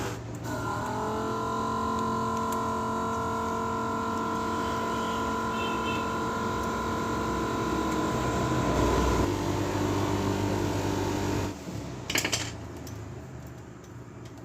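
Small electric motor starting and running with a steady hum. Its tone shifts about nine seconds in and it cuts off at about eleven and a half seconds, followed by a brief clatter of clicks.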